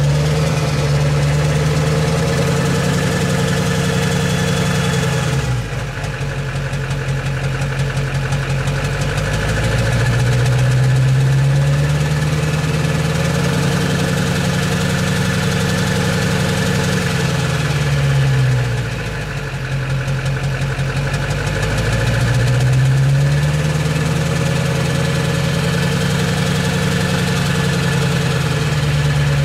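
2001 Duramax 6.6 L V8 turbodiesel running open at the downpipe, revved up and let back down three times. A knock comes through the exhaust, which the owner suspects may go away on deceleration when the engine is not fueling.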